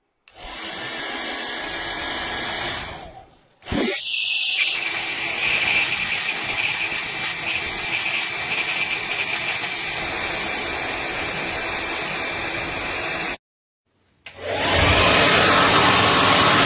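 Hand-held Beurer hair dryer running with a steady blowing rush and a faint high whine. It cuts out twice, briefly a little over three seconds in and again near the end, and comes back louder after the second break.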